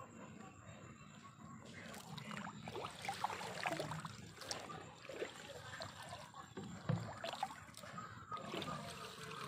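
Shallow water splashing and sloshing in irregular bursts, as of someone wading through flooded ground.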